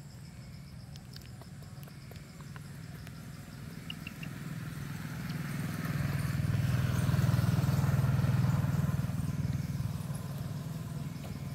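A motor vehicle passing by: engine and road noise swell from about four seconds in, are loudest a few seconds later, then fade away.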